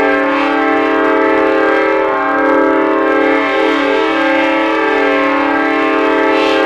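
Synthesizer playing train horn sounds: several steady notes held together as a multi-chime locomotive horn chord, with the notes sliding to new pitches every second or so.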